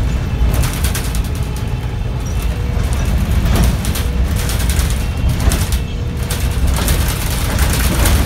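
City bus heard from inside the passenger cabin while riding: a steady low engine and road rumble, with frequent short rattles and knocks from the body and fittings.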